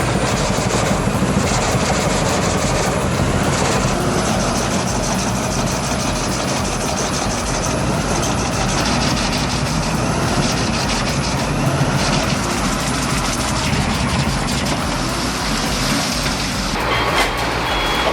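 Albach Diamant 2000 self-propelled wood chipper running loud and steady, a heavy engine and machine noise with a faint high whine. The sound changes about a second before the end.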